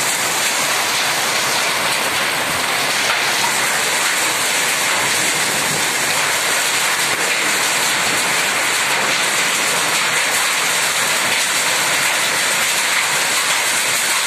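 Heavy hail and rain pelting down on roofs and parked vehicles: a dense, steady din of countless impacts that stays at one level.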